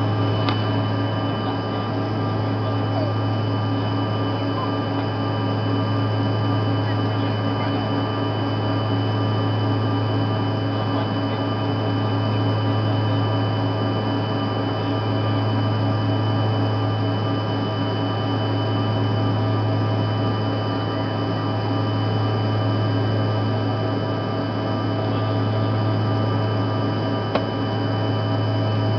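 Cabin noise of a CRJ-200 regional jet in its climb after takeoff: a steady low drone from its rear-mounted turbofan engines, with steady whining tones above it. One small click near the end.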